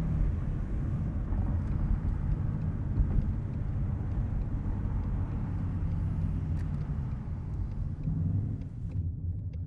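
2020 Ford Mustang's V8 with a resonator-delete H-pipe exhaust, running steadily under way with a low, dense exhaust note and a few faint crackles. It grows quieter near the end.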